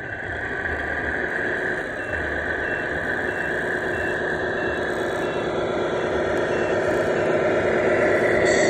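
Engine sound of a 1/14 scale RC semi truck, a steady idling drone with a constant whine above it, growing louder over the last few seconds.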